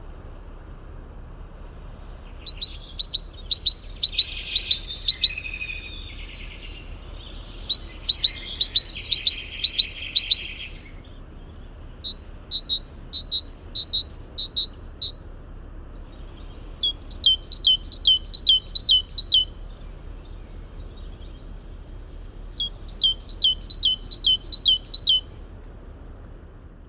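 A songbird singing five phrases in turn, each a run of about ten quickly repeated high notes lasting two to three seconds, with short pauses between.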